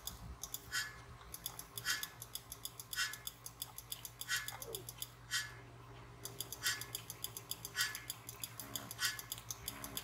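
Crochet hook clicking as spike stitches are worked through yarn: a steady patter of small clicks, with a sharper click carrying a faint ring about once a second, over a low steady hum.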